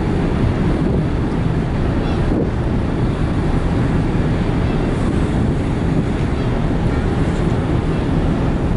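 Wind buffeting the microphone on the open deck of the car ferry Ishikari, over the steady low drone of the ship's engines as it gets under way.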